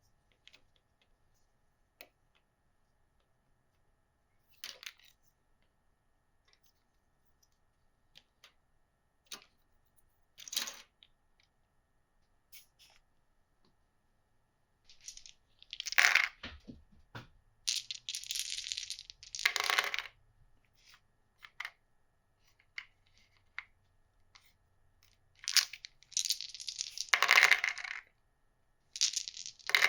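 Board game pieces being handled: scattered light clicks, then two longer spells of clattering, one about halfway through and one near the end.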